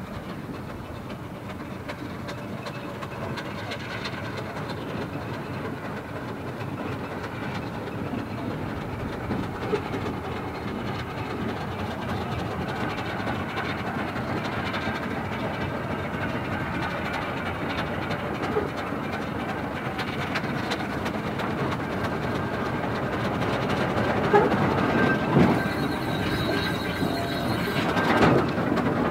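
Steam travelling crane running slowly along the rails towards the listener, its wheels rumbling and clicking over the track and growing louder as it nears. A few clanks come through, and a burst of steam hiss sounds near the end.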